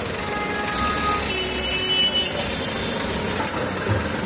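Busy street noise: passing motor traffic with a steady low rumble that swells about a second in.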